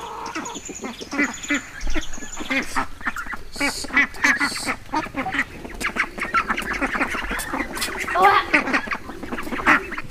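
A flock of ducks quacking: many short calls overlapping one another throughout.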